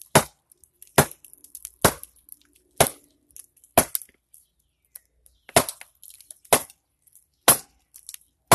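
A club striking the back of an axe set into the end grain of a cherry log: nine sharp knocks about a second apart, with a longer pause near the middle, driving the blade in as the log starts to split.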